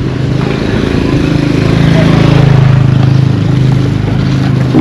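A motor vehicle's engine running steadily as it passes close by, getting louder toward the middle and then easing off.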